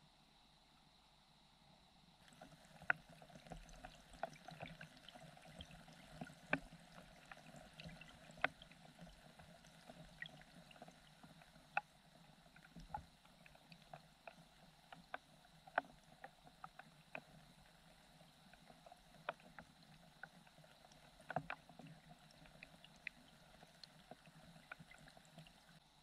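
Underwater ambience picked up by a submerged camera: a faint hiss with many irregular sharp clicks and ticks, starting about two seconds in and stopping just before the end.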